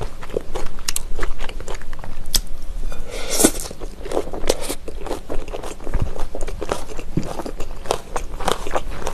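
Close-up chewing of a mouthful of sliced raw trout and crisp shredded vegetables dressed in chogochujang, with wet crunching and crackling bites throughout. There is a short slurp of the saucy vegetables about three seconds in.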